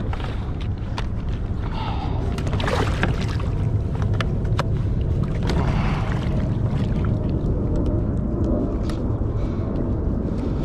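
Steady wind rumble and water noise around a fishing kayak, with scattered light clicks and a few brief knocks.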